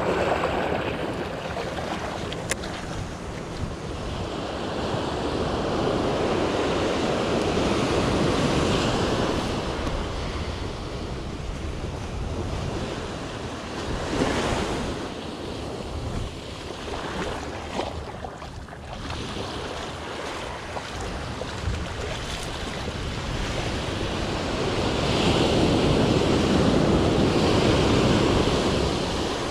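Small surf breaking and washing up the sand in slow swells, louder a fifth of the way in and again near the end, with wind buffeting the microphone.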